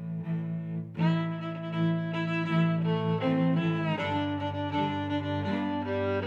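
Background music of bowed strings: low held cello-like notes, joined about a second in by a fuller, louder string line with higher notes that shift pitch every second or so.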